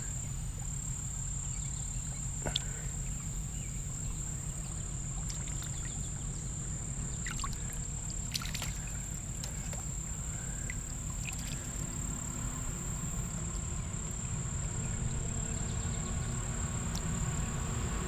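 Muffled low rumble of shallow creek water moving around a GoPro in its waterproof housing as it is held at the water surface, with a couple of faint clicks and a steady high-pitched tone.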